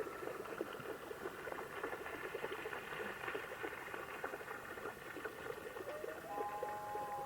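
Common loon starting a long wailing call about six seconds in, held notes that rise slightly in pitch, over a dense background patter of small clicks.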